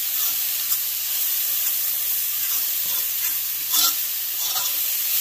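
Sliced onions sizzling in hot oil in a pan as they brown, while a fork scrapes and clicks against the pan stirring them; the loudest scrape comes a little before four seconds in.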